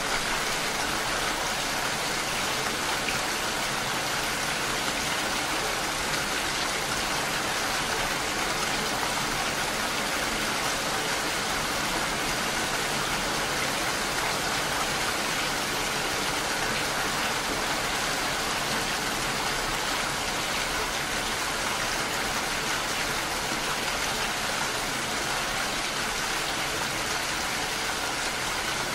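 Steady rain: a constant, even hiss of falling rain, with no single drops, thunder or other sounds standing out.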